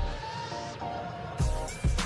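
Background music with a steady electronic beat of bass thumps and ticks over held notes; the beat drops out for about a second near the start, then comes back.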